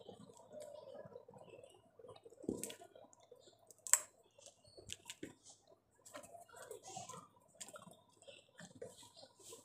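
Small clicks and crackles of fingers peeling the split shell off a boiled seed, with one sharp crack about four seconds in as the shell is bitten open.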